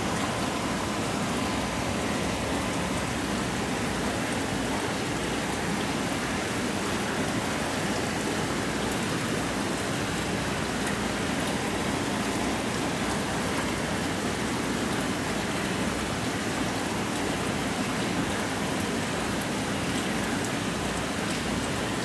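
Steady splashing, trickling water of a saltwater aquarium's circulation, unchanging throughout, with a faint steady hum underneath and tiny scattered ticks.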